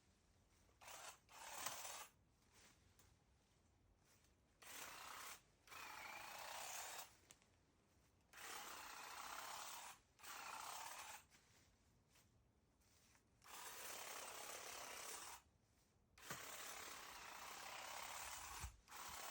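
A garden tool rasping through grass and garden debris in repeated strokes, about seven of them, each lasting a second or two with short pauses between.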